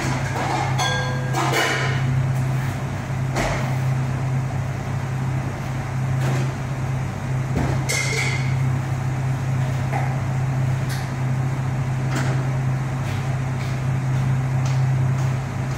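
A steady low hum runs throughout, with about ten scattered clinks and knocks of pots, dishes and utensils being handled during kitchen work.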